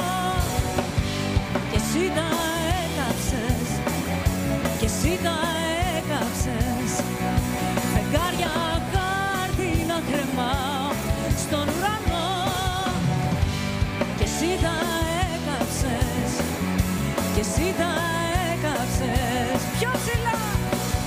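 Live pop-rock band playing: drum kit keeping a steady beat under electric guitar and bass, with a woman singing into a microphone.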